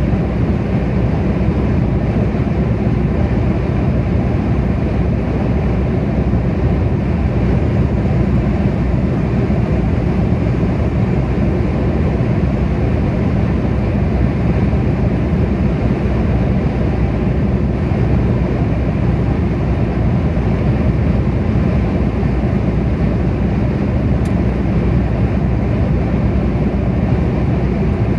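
Steady road noise of a car cruising at motorway speed: tyre and engine rumble, deep and unchanging throughout.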